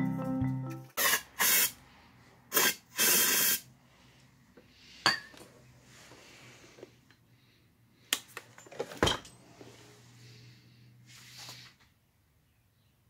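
Four short hissing squirts from an aerosol spray can in quick succession, the last one longer, followed by scattered light clicks and taps of hands working on the engine.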